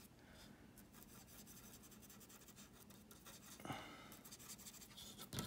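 Faint scratching of a small brush's bristles stroking and blending oil paint on textured canvas paper.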